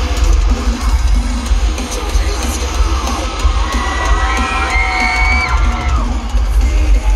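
Live band playing loudly through a concert PA, heard from within the audience: heavy bass and drums filling the sound, with crowd members yelling over it. A long held note rings out in the middle.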